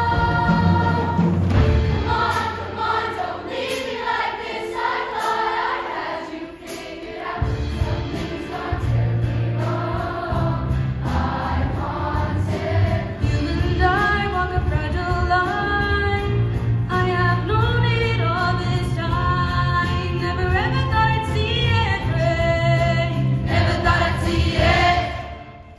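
Middle school show choir singing in many voices over an accompaniment with a steady beat and bass line. The bass drops out for a few seconds and comes back, and the song cuts off near the end on its final note.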